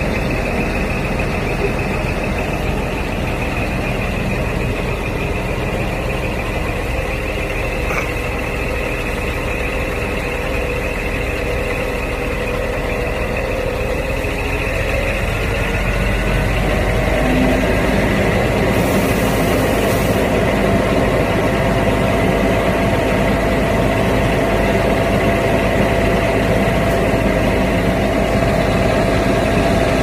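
Concrete pump truck's diesel engine running steadily with a high whine over it. About halfway through it speeds up, rising in pitch and getting louder, and holds the higher speed.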